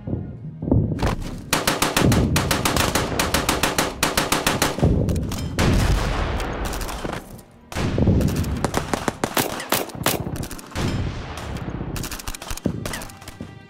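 Battle gunfire: rifle shots in rapid, overlapping succession, several a second, with a short lull about seven and a half seconds in before the firing picks up again.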